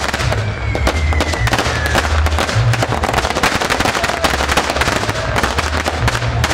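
Fireworks going off in a dense, rapid volley of bangs and crackles over a low rumble, with a whistle falling in pitch from about half a second to two seconds in.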